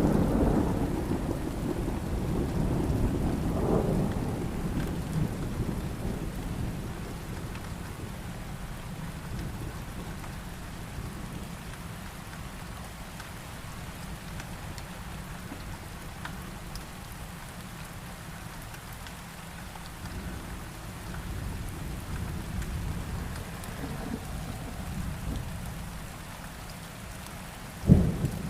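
Steady heavy rain with thunder: a low rumble dies away over the first few seconds, and a sudden sharp thunderclap cracks just before the end.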